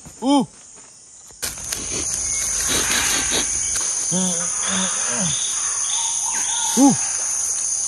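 Jungle ambience: a steady high-pitched insect drone, like crickets, that sets in about a second and a half in, with several short rising-and-falling calls over it, the loudest near the end.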